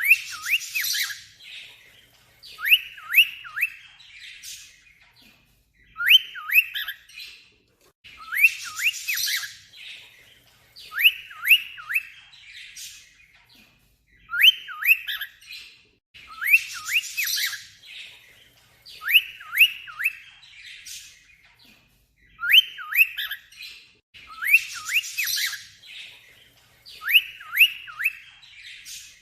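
Cockatiel mimicking an alarm sound: a short scratchy burst followed by three or four quick whistled notes, each sliding down in pitch. The phrase repeats about every two to three seconds.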